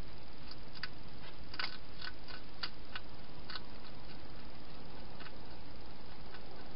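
Hedgehog eating at a bowl: a quick, irregular run of sharp little clicks and crunches in the first half, then a few scattered ones, over a steady hiss.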